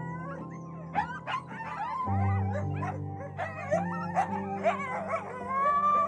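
Coyote yipping and howling in many short, sliding calls over background music with sustained low chords.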